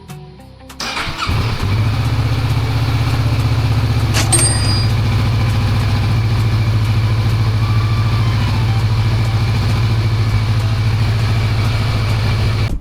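Kawasaki Versys 650's parallel-twin engine cranked by the starter, catching almost at once and then idling steadily, started up after its oil change. A single sharp metallic click sounds about four seconds in.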